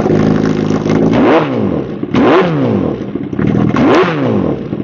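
2016 Kawasaki Ninja ZX-10R's 1000 cc liquid-cooled inline-four, breathing through a full-system Racefit exhaust, revved on the stand. A booming sound: a steady run for about a second, then three quick throttle blips, each rising and falling in pitch.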